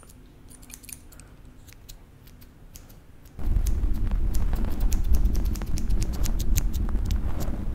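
Small scissors snipping close to the microphone: a string of sharp little metallic clicks. About three and a half seconds in, a loud low rumble on the microphone joins, while the clicks come thicker.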